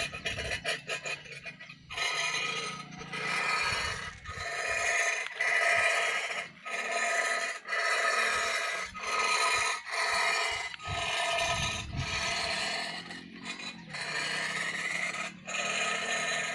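Repeated scraping or rasping strokes, about one a second, each with a steady pitched whine.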